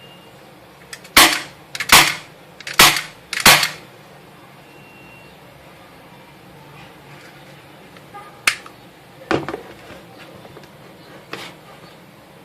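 PT 24/7 CO2 airsoft pistol firing: four sharp shots in quick succession about a second apart, then, after a pause, a few more single shots, the last ones quieter.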